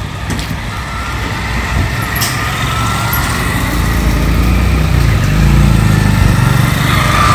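Small motorcycles riding past close by on a street, their engines getting louder through the middle and latter part. Other vehicle engines run underneath.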